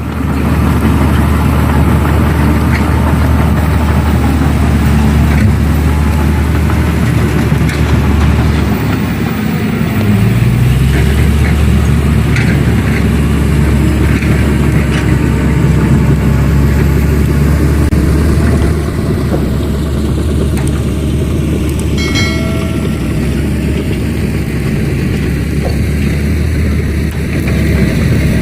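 Heavy diesel engine of earthmoving equipment running with a steady low drone; about nine seconds in it eases off and then revs up, rising in pitch. A brief higher tone sounds about twenty-two seconds in.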